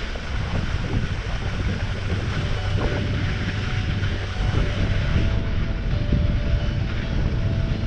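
Steady wind rushing over the microphone of a camera carried by a skier going downhill, with the skis hissing over packed, groomed snow.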